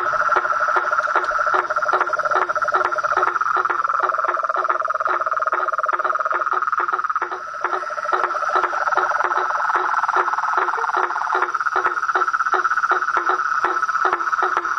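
A chorus of frogs calling: a steady high drone under a regular beat of about three or four calls a second, with rapid trilled calls coming and going.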